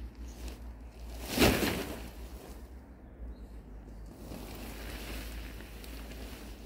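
Pop-up tent springing open from its coiled pack with a loud, brief nylon whoosh about one and a half seconds in, then softer rustling of the tent fabric, over steady wind buffeting the microphone.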